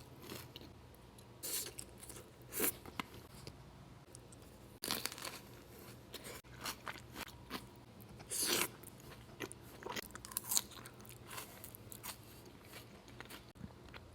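Close-miked eating of crunchy food from a savory snack plate: separate loud crunching bites every second or two, with quieter chewing clicks between them.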